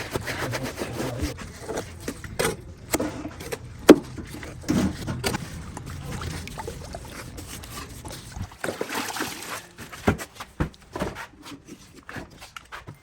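Scraping, rubbing and irregular knocks of hand tools working cement mix into gaps, with one sharp knock about four seconds in. A low rumble underneath stops about eight and a half seconds in.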